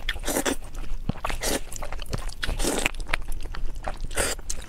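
Close-miked mouth sounds of noodles being slurped up in repeated sucks, about one a second, with wet smacking and chewing clicks in between.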